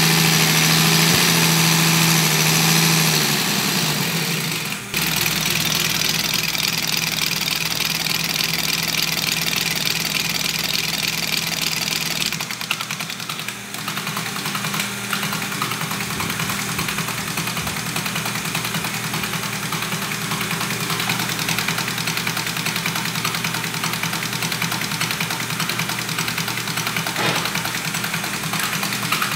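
Diesel injection-pump test bench driving a Mercedes six-cylinder inline injection pump: a steady mechanical run with a hissing top. Its low tone changes about four seconds in and shifts again around twelve seconds, as the bench's running speed changes during calibration.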